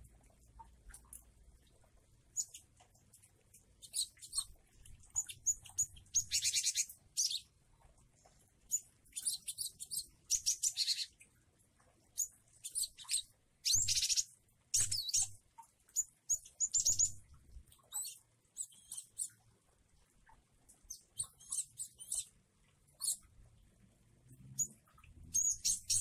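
Caged glatik wingko (cinereous tit) singing: bouts of high, quick chirping phrases and rapid trills, with short gaps between them and a lull of a few seconds past the middle.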